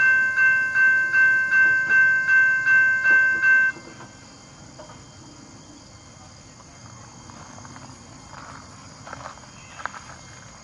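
Railroad crossing bell ringing in quick, even strikes while the crossing gates come down, then cutting off suddenly about four seconds in once the gates are lowered.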